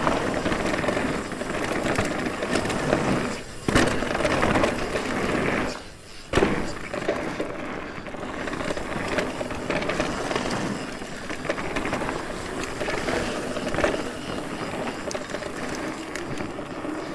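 Mountain bike riding down a dirt trail: tyres rolling and rattling over the rough ground, with the rear hub's freewheel ticking. About six seconds in the noise dips briefly, then a sharp jolt.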